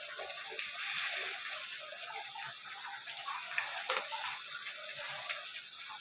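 A pot of food bubbling on the stove: a steady hiss with many small, irregular pops.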